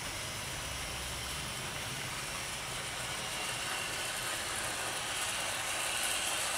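00 gauge model locomotives running on the track, a steady whirr of small electric motors and running wheels that grows a little louder near the end.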